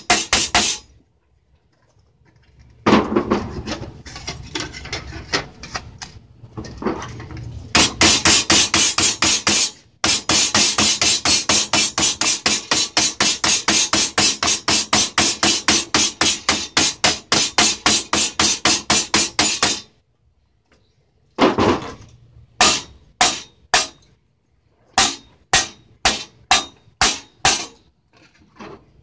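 Hammer striking sheet steel laid over a strip of iron, folding a flange into a repair patch. Some irregular knocks and scraping first, then a long run of rapid blows for about twelve seconds, and after a short pause a few separate strikes near the end.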